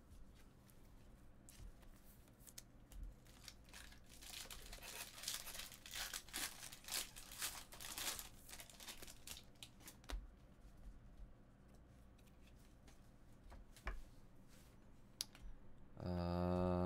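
Foil trading-card pack wrappers crinkling and tearing, with cards being handled: an uneven scratchy rustle dotted with small clicks, busiest in the middle.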